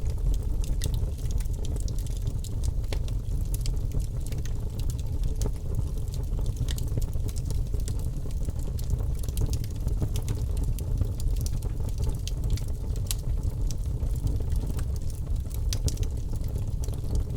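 Birch logs burning in a fireplace: a steady low rumble of flame with frequent small, irregular crackles and pops.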